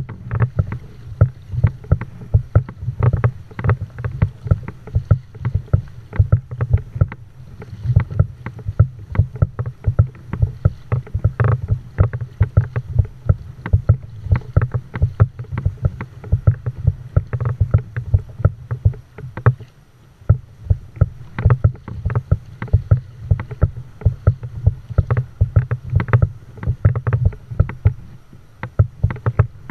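A kayak under way on the water: water slaps and knocks against the hull several times a second over a steady low rumble.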